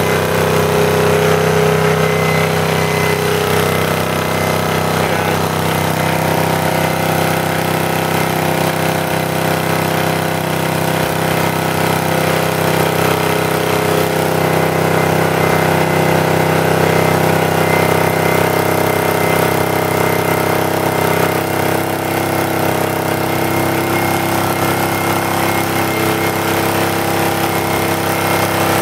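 Briggs & Stratton model NP single-cylinder engine running steadily at a constant speed while driving a Farm Master 600 W generator.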